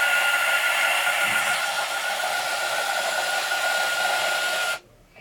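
Horikawa tin toy missile robot's battery-powered motor and gear mechanism whirring steadily with a high tone. It cuts off suddenly near the end, when a hand switches the toy off.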